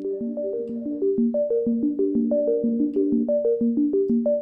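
A synthesizer playing a quick, steady sequence of short pitched notes in a repeating pattern, run through the Eventide H90's Plate reverb algorithm.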